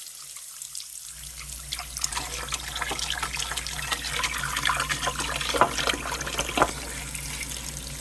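Kitchen tap running into a bowl of water as lettuce leaves are rinsed. The water comes on about a second in, and there are two sharp splashes or knocks a second apart near the six-second mark.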